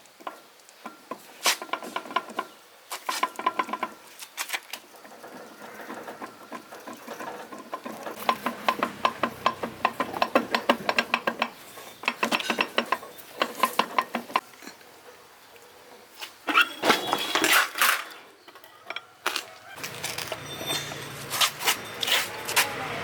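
Metal tools and machine parts clinking and clattering on one another in irregular knocks with a short ring after each, including quick runs of evenly spaced clicks. Near the end a low steady hum starts underneath.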